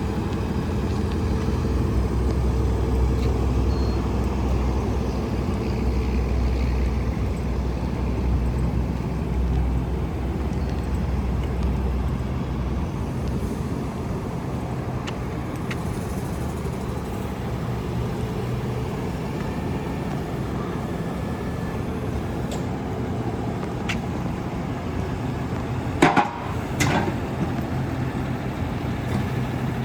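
Diesel engine of a Freightliner M2 grapple truck running steadily, its deep low rumble easing off about twelve seconds in. Two sharp knocks come close together near the end.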